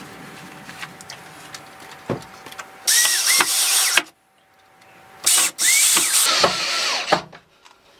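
Cordless drill-driver driving screws through a steel hinge into a timber gate rail: two runs, one of about a second and one of about two seconds, with the motor's pitch bending as each screw goes in. A sharp knock sounds about two seconds in.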